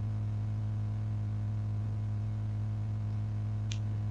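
Steady low electrical hum, typical of mains hum picked up by the microphone, with one faint click near the end.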